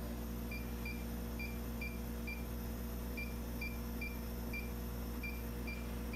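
Short electronic beeps from a CO2 laser engraver's control panel, about a dozen single high tones at roughly two a second with a brief pause just before the middle, as buttons are pressed while setting up a rotary job. A steady electrical hum from the machine runs underneath.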